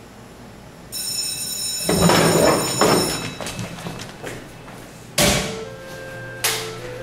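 A ringing tone starts suddenly about a second in, overlapped by loud clattering thuds. Near the end, music comes in, marked by two sharp hits.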